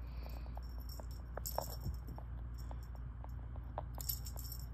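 Light metallic jingling in three short bursts, with scattered small clicks, as a cat plays with a dangling wand toy and its metal clip.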